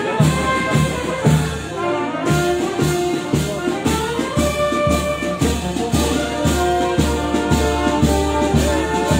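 A brass band playing a march, with trumpets and trombones carrying the tune over a steady beat of just under two beats a second.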